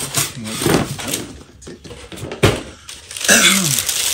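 Clear plastic bag crinkling and rustling as a wrapped helicopter canopy is handled and lifted, with a sharp thump about two and a half seconds in. Near the end comes a short wavering hum of a voice.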